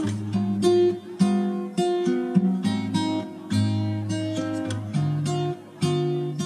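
Background music: acoustic guitar playing a sequence of plucked notes and strummed chords.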